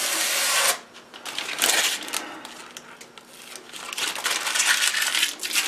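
Crinkling and rustling of clear plastic packaging being handled and pulled away from a new radio, in several bursts, the longest near the end.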